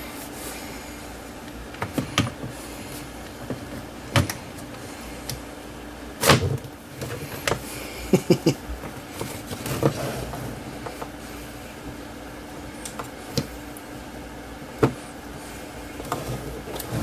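Plastic and metal case parts of a Keithley 169 bench multimeter being handled and fitted together: scattered knocks and clicks, the loudest about six seconds in and a quick cluster around eight seconds.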